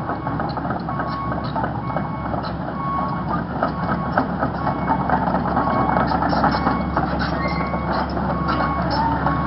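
Excavator's diesel engine running with its travel/backup alarm beeping about once a second, over metallic clanking and clicking from the machine working.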